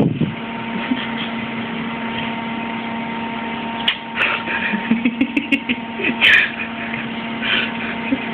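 A steady machine hum with constant tones, unchanging throughout. A few sharp clicks and brief voice sounds come in the second half.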